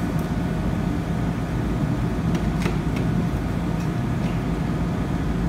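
Steady mechanical hum and air rush of commercial kitchen equipment, with a few faint light clicks from about two seconds in as a metal ladle is worked in a pan of melted chocolate.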